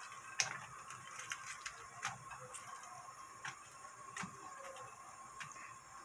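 Sliced cabbage and onion dropped by hand into a hot oiled frying pan: a scattering of light, irregular taps and clicks as the pieces land, with a faint steady tone underneath.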